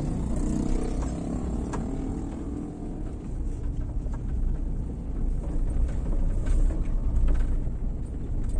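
Vehicle driving along a road: a steady low engine and road rumble, with the engine note easing slightly downward in the first few seconds.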